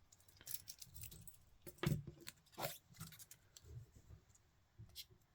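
Irregular small clicks and rustles from a wristwatch being handled and buckled on, its leather strap and metal buckle being fastened, the loudest clicks about two and three seconds in.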